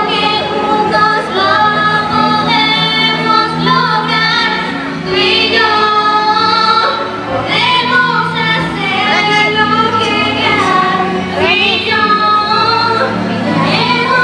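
Two young female voices singing a slow ballad, holding long notes with vibrato over a steady accompaniment.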